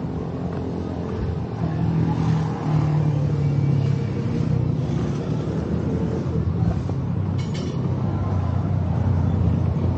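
A motor vehicle engine running at low revs, a steady low hum that grows a little louder about two seconds in. A brief rattle is heard about seven and a half seconds in.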